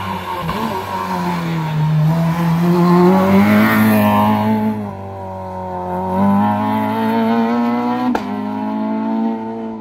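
Rally car engine working hard through a hairpin, its pitch dropping and climbing as it brakes and accelerates, loudest around three to four seconds in. A single sharp crack comes a little after eight seconds.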